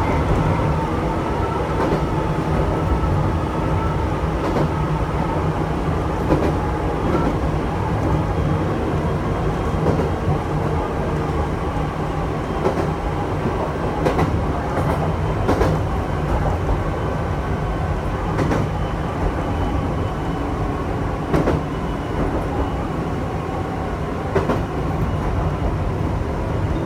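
Chichibu Railway electric train running along the line, heard from inside the front car: a steady rumble with scattered clicks of the wheels passing over rail joints.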